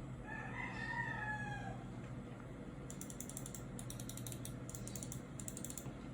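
A rooster crows once in the first two seconds. From about three seconds in comes a computer mouse's buttons being clicked rapidly, in four quick bursts of clicks.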